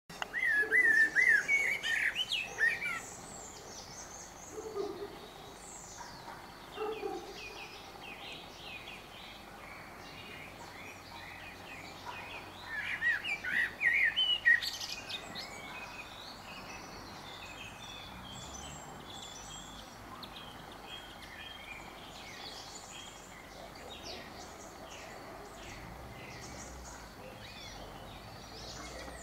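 Male Eurasian blackbird singing: two loud warbling song phrases, one at the start and one about twelve seconds in, with fainter bird twittering between and after them.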